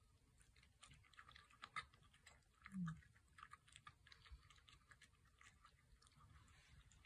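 A puppy chewing food from her bowl: faint, irregular crunches and clicks. One short low sound about three seconds in.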